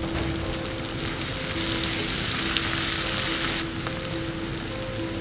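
Chopped onion sizzling in hot ghee in a non-stick kadai, stirred with a silicone spatula; the sizzle grows louder about a second and a half in and eases off a couple of seconds later.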